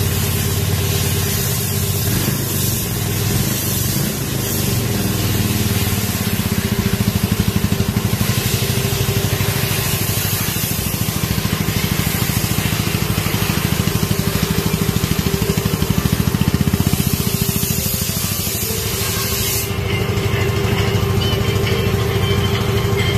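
Yamaha Majesty C scooter engine idling steadily while the scooter stands still, with an even, fast throb.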